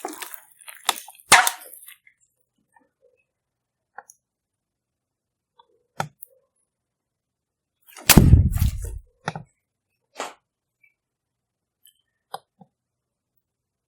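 Slime being handled: scattered sharp clicks and taps, with one louder, heavier thump about eight seconds in.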